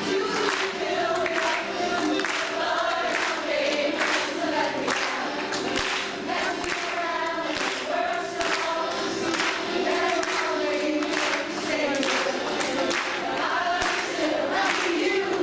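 A group of women singing together, with a steady beat behind them.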